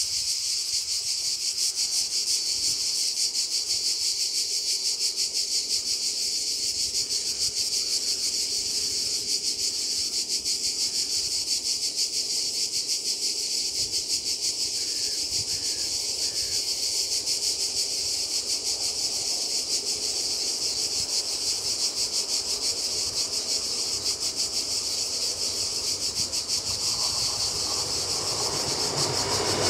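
Loud, steady chorus of insects shrilling in a fast pulsing rhythm. In the last few seconds a train's rumble rises underneath as it approaches the crossing.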